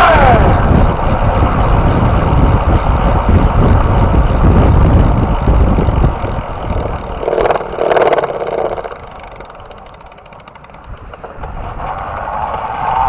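Electric bike motor whine falling in pitch as the power is let off. Rumble and wind noise follow while the bike rolls, then the motor whine rises again near the end as it powers up.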